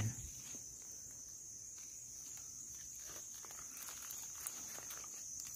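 Faint rustling of leaves and a few light ticks of twigs as a hand works through the branches of a wild phak wan shrub, over a steady high-pitched drone.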